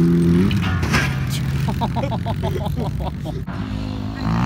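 Vehicle engine revving up briefly, then running steadily at a low pitch, with a lighter, faster buzzing note in the middle; it revs up again at the very end.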